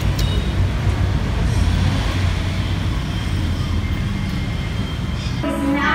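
Steady low rumble of street traffic noise. Music with singing starts near the end.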